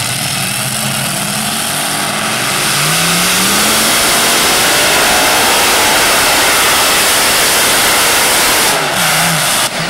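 Modified pulling tractor's engine running steadily at low revs, then revving up about three seconds in and running flat out as it hauls the weight sled down the track. It is loudest in the middle, and the engine note drops and wavers near the end.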